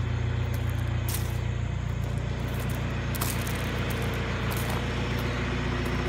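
Old John Deere 410 backhoe's engine running steadily with an even low hum, being exercised after sitting unused for weeks.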